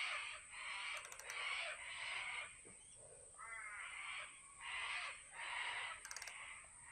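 A bird, likely a crow, calling repeatedly outside: a series of short, harsh calls, roughly one every half second to second, with a brief pause near the middle. Faint clicks about a second in and again near the end.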